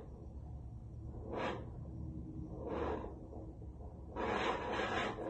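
Handheld fetal doppler giving bursts of whooshing static as its probe is moved over a gelled pregnant belly, searching for the baby's heartbeat. There are two short bursts, then a longer one of about a second near the end.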